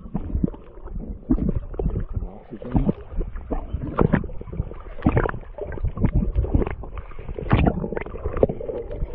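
Water sloshing, gurgling and knocking, heard muffled through a camera held underwater in the shallows: a steady run of irregular bumps as the hand and fish move against the camera.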